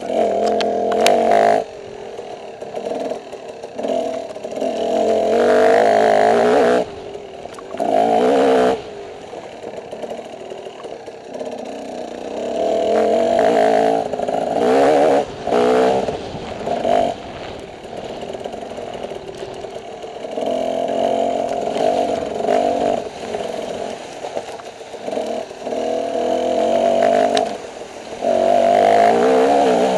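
Dirt bike engine revving hard in stretches of one to several seconds, dropping off between them as the throttle is rolled on and off over rough trail, with rattling of the bike in the quieter gaps.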